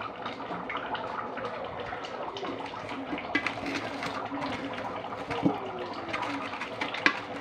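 Pot boiling on a gas stove: a steady bubbling hiss, with a couple of light knocks from pots or utensils near the end.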